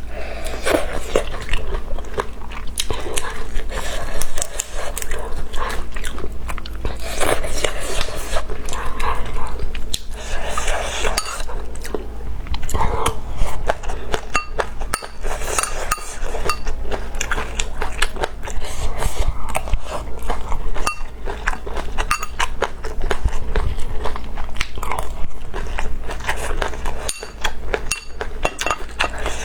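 Close-miked chewing and crunching of bird's-eye chilies and rice, a dense run of quick crisp clicks.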